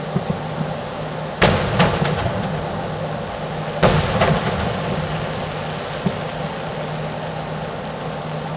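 Aerial firework shells bursting with two sharp booms about two and a half seconds apart, each followed by a few softer reports. A steady low hum runs underneath.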